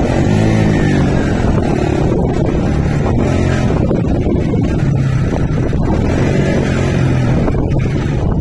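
A vehicle engine running steadily, its pitch rising and falling every few seconds, with wind buffeting the microphone.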